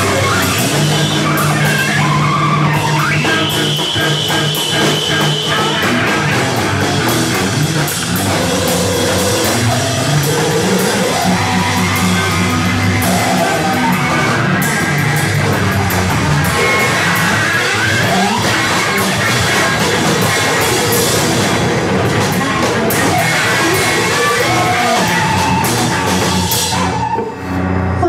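Noise-rock band playing live: loud, dense music with drums that dips briefly about a second before the end.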